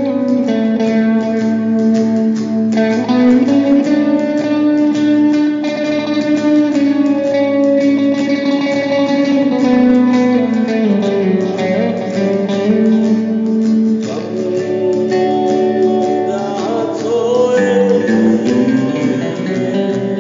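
Acoustic guitar strumming a rhythm under an electric lead guitar playing a melody of long-held notes that slide from one pitch to the next.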